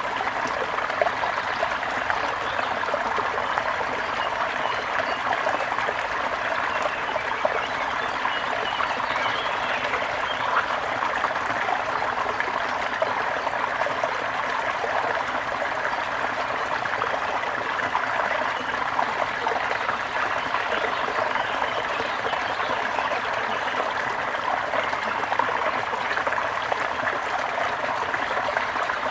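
Small brook running steadily: a continuous babble and trickle of flowing water.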